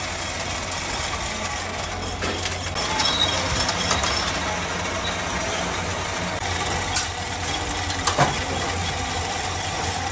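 Metal lathe running with a steady machine hum, and a few short sharp metallic clicks about seven and eight seconds in.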